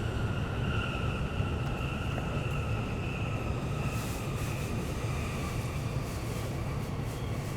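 Running noise heard inside an E531-series electric train: a steady low rumble of wheels on rail, with a faint high whine slowly falling in pitch as the train slows on its approach to the station.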